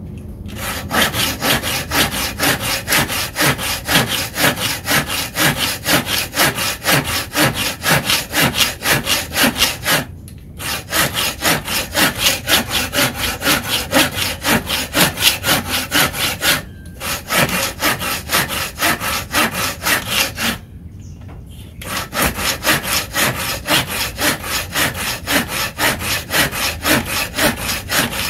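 Tekiro folding hand saw cutting through a wooden block in quick, even back-and-forth strokes, stopping briefly three times.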